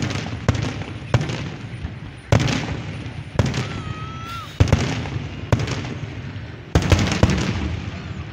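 Aerial fireworks shells bursting overhead: a run of about ten sharp bangs, roughly one a second and irregularly spaced, each trailing off, with a quick cluster of bangs near the end.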